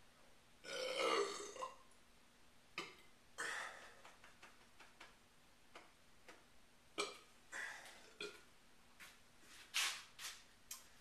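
A man belches once, loud and drawn out for about a second, shortly after swigging malt liquor. It is followed by a scatter of short, sharp noises.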